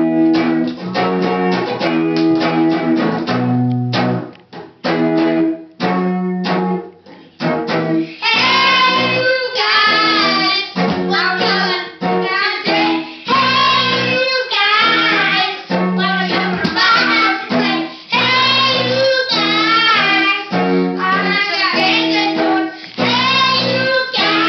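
An electric guitar plays a repeating riff. From about eight seconds in, a young boy sings loudly over it into a microphone.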